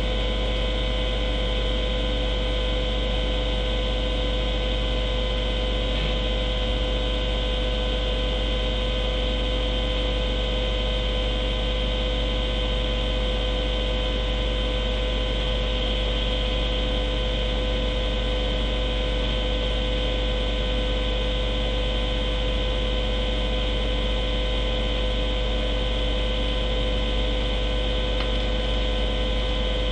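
Steady electrical mains hum with several constant high whining tones over a hiss, unchanging the whole time.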